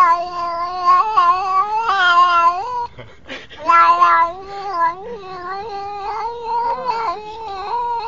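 Black-and-white tuxedo cat meowing in long, drawn-out yowls, wavering a little in pitch; the call breaks off about three seconds in, then starts again and runs on.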